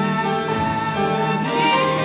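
Violin, piano and accordion playing a tango together, the violin leading with sustained bowed notes over the piano and accordion.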